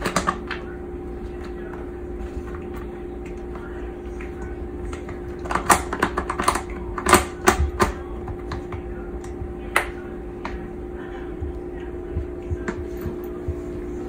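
Scattered sharp clicks and scuffs from a Bengal cat grappling, biting and kicking a Nike running shoe, with a flurry of them about halfway through, over a steady low hum.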